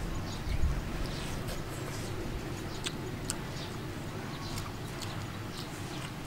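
Mouth clicks and lip-smacking of someone eating, irregular short clicks over a steady low hum, with a dull thump about half a second in.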